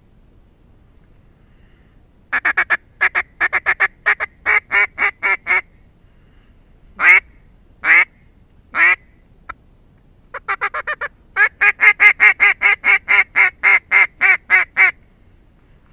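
Loud duck quacking in the mallard-hen pattern: a quick run of about ten quacks, then three longer drawn-out quacks, then a longer quick run of about twenty quacks.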